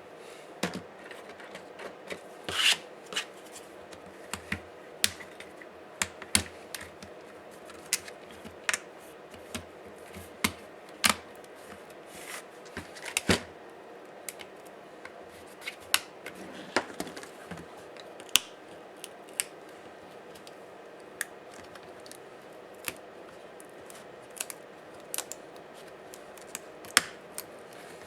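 Dell Latitude 5480 laptop parts and hand tools being handled during disassembly: irregular sharp clicks and taps, several close together in the first half, then only a few, far apart.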